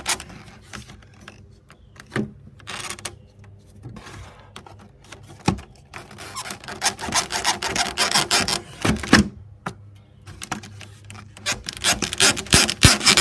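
White plastic window jamb track scraping and rubbing against the frame as it is worked loose and slid out by hand, in uneven bursts with a few sharp knocks, busiest past the middle and again near the end.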